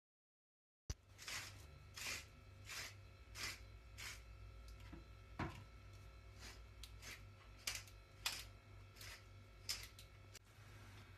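Pepper mill grinding black pepper: a run of short grinding strokes, roughly one every two-thirds of a second, starting abruptly about a second in. A low steady hum runs underneath.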